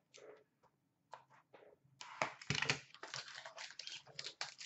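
Foil wrapper of an Upper Deck Stature hockey card pack being torn open and crinkled by hand. A few faint rustles and taps come first, then dense crinkling from about two seconds in.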